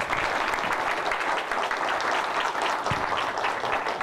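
Audience applauding steadily: many people clapping at the close of a lecture.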